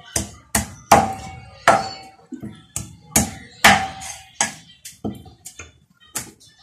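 Broad-bladed kitchen knife chopping through raw chicken on a chopping block: about a dozen sharp whacks at an uneven pace, some with a short metallic ring from the blade.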